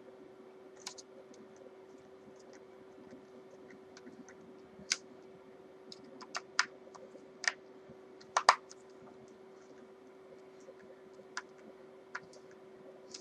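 Scattered sharp clicks and taps of a screwdriver and small hardware being worked on an electric guitar body, irregular and a second or more apart, over a faint steady hum.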